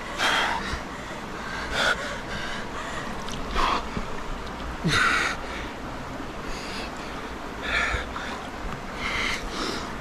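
A man breathing hard in short, sharp, noisy gasps and blown-out exhalations, about one every second or so, while sitting in icy pool water: cold-shock breathing from the freezing immersion.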